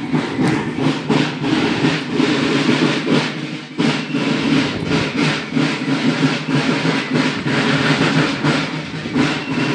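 Marching drums beating a rapid, steady rhythm for a column of marchers.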